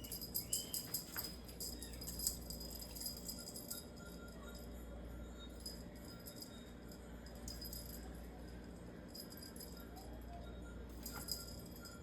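Small bell on a cat wand toy jingling and rattling as the toy is swung and batted at, busiest in the first few seconds and again near the end, with light clinks in between.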